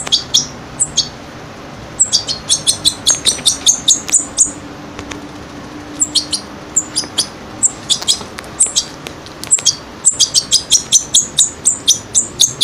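European goldfinch chick, about two weeks old, giving rapid high-pitched food-begging chirps at about five a second, in runs of a few seconds with short pauses, while being hand-fed paste from a toothpick.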